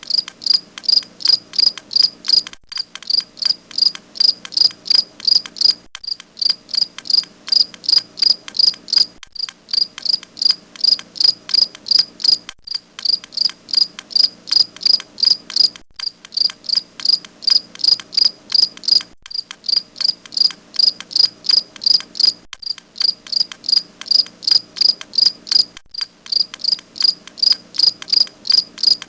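Cricket chirping steadily, short high chirps repeated about three times a second, with a brief break every three seconds or so.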